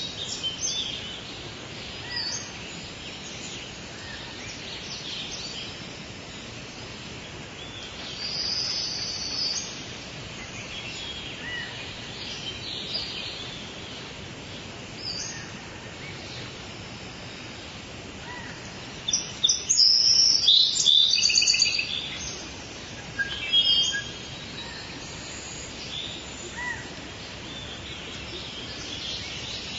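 Rainforest ambience: various birds calling and chirping over a steady background hiss. About two-thirds of the way through comes a loud burst of rapid, repeated bird calls.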